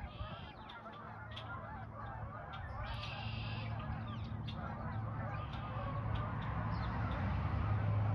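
A flock of geese honking in flight overhead: many overlapping calls, growing gradually louder.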